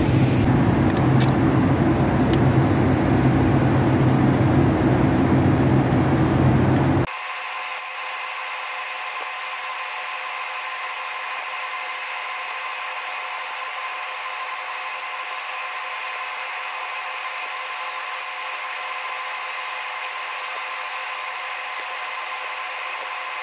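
Steady running noise of the Ford Focus's engine bay, with a deep hum. About seven seconds in it cuts abruptly to a thinner, quieter steady whir holding several fixed tones.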